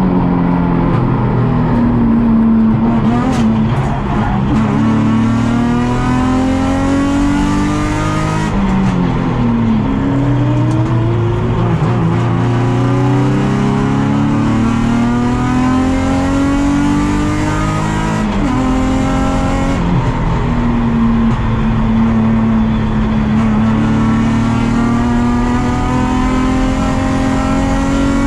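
Onboard sound of a Nissan 350Z race car's V6 engine at race pace. It is loud throughout, its pitch climbing for several seconds as it accelerates and then dropping sharply at gear changes or falling away under braking, about five times.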